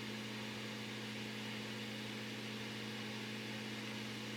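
A steady low electrical hum with a light hiss behind it, unchanging throughout.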